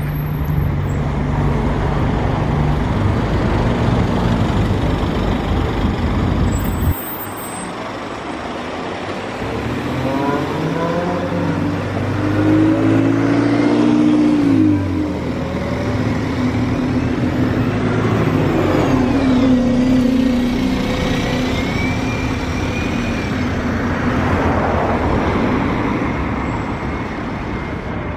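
Alexander Dennis buses passing close. First an Enviro400H hybrid double-decker's engine runs as it comes round the roundabout. After a sudden cut, an Enviro200 single-decker's diesel engine pulls away, rising and falling in pitch as it accelerates, with other road traffic around it.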